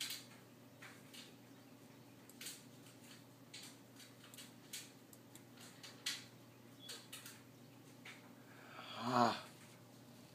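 Scattered soft clicks at a computer, a dozen or so at uneven intervals, over a steady low hum. About nine seconds in, a short hummed vocal sound from the person, which is the loudest thing.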